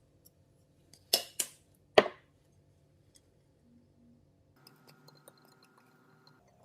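Tableware clinking: three sharp clinks of glass or ceramic, two close together about a second in and a louder one half a second later, then faint light clicks.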